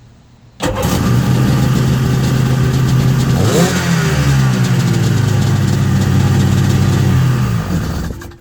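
Carbureted two-stroke Sea-Doo jet ski engine starting up after a fuel system and carburettor rebuild. It catches suddenly and runs steadily for about seven seconds, with a quick rev partway through, then shuts off: the no-start is cured.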